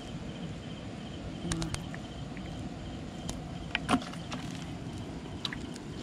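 A few short sharp clicks and taps from handling a folding lift net and the shrimp caught in it, the loudest about four seconds in, over a steady low background rumble.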